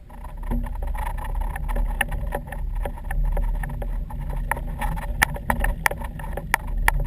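Low, steady rumble of a boat under way, with irregular sharp knocks and clicks over it, several louder ones in the second half.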